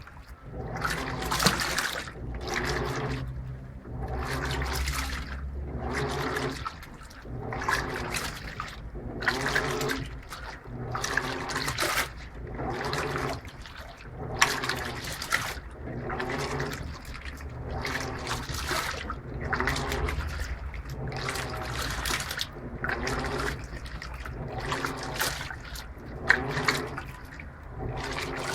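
Electrolux LTP15 top-load washing machine agitating with turbo agitation on: clothes and water slosh and swish in the drum in a regular rhythm, about one stroke a second, over the low hum of the motor.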